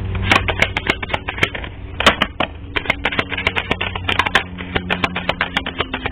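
A rapid, uneven run of light clicks and taps, several a second, over a faint steady hum.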